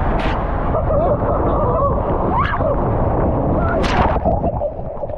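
Rushing water and the rumble of a raft speeding down an enclosed waterslide, loud and steady, with two sharp splashes of spray and riders' screams.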